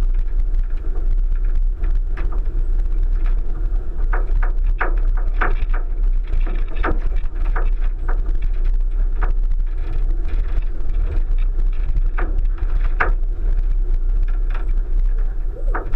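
1999 Subaru Forester driving over a rough off-road track, heard from a roof-mounted camera: a steady low rumble with irregular knocks and clatters as the car jolts over bumps.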